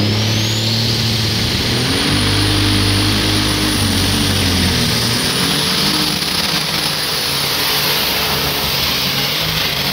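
Pulling tractor's engine running hard under load as it drags the weight sled, with a high steady whine over the engine note. The low engine note wavers and eases about halfway through.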